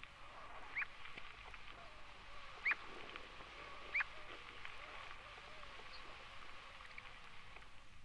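Red-necked stint calling: a few short, sharp, high call notes that rise and then drop, irregularly spaced, over the steady hiss of an old field recording. The two loudest notes come about a third and halfway through.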